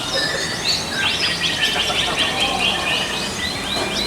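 Several canaries singing at once, fast trilled phrases of repeated chirps overlapping one another.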